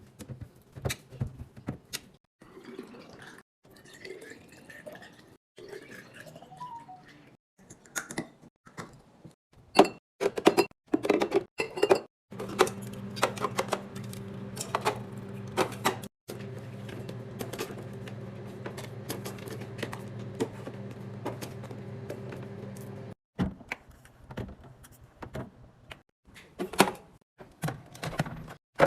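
Containers clicking and knocking as they are handled and set down, then a steady humming flow of liquid for about ten seconds, like a container being filled, followed by more knocks.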